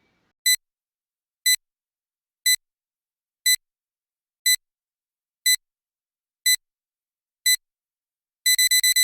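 Electronic beeps in a countdown-style pattern: eight short, high, clear beeps one a second with silence between, then about eight and a half seconds in they speed up into a rapid run of beeps.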